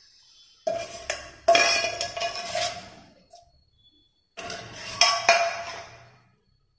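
A metal spoon striking metal cookware, a few sharp clinks, each ringing briefly and dying away, the loudest about a second and a half in and another about five seconds in.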